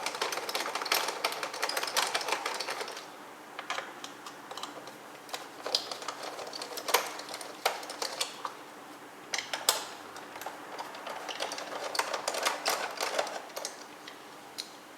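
Phillips screwdriver undoing the screws of a Roomba's bottom faceplate: irregular clicks and taps, thickest in the first three seconds, then scattered.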